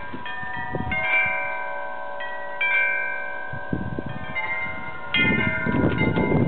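Metal wind chimes ringing in gusty wind, several tones of different pitch struck at odd moments and ringing on. Wind rumbles on the microphone, growing louder in the second half.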